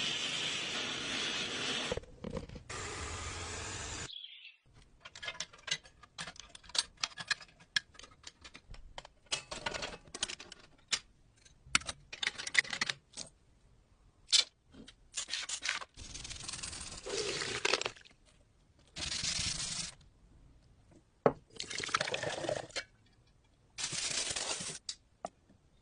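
Hands-on restoration work on an old cash register: several bursts of hissing noise, each lasting a second or two, between irregular clicks and scrapes of handled parts.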